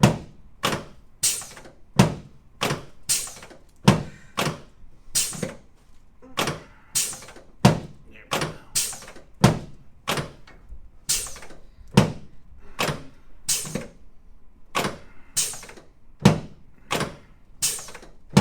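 Chiropractic adjusting table's pelvic section knocking repeatedly in a steady rhythm, about three sharp knocks every two seconds, as the pelvis is worked on the table.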